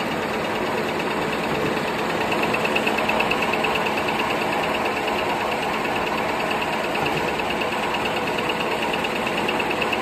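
Automatic table napkin folding and cutting machine running steadily: a continuous mechanical clatter with a fast, high ticking rhythm.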